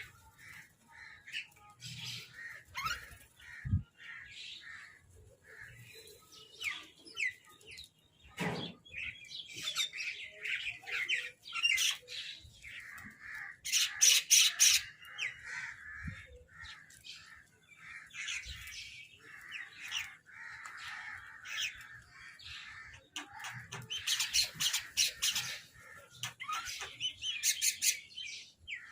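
Several crows calling over one another with harsh, squawking caws, loudest in two bursts of rapid rasping calls about halfway through and again near the end.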